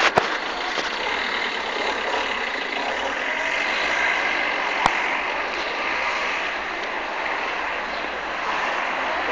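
Steady outdoor street noise, the hiss of distant traffic, with a single sharp click about five seconds in.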